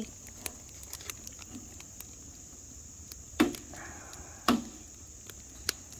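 Crickets trilling steadily, with a few sharp wooden-sounding knocks, the two loudest about three and a half and four and a half seconds in.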